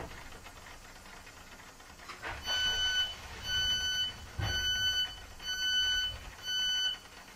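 A Class 465/9 Networker electric train's door warning alarm beeping at a station stop: five evenly spaced electronic beeps about a second apart, each a clear steady tone lasting about half a second. A couple of dull knocks from the train come in around the first beeps.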